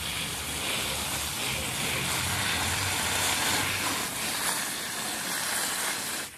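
Garden hose spraying water into a gutted fish's belly cavity, flushing out the bloodline: a steady hiss that cuts off sharply near the end.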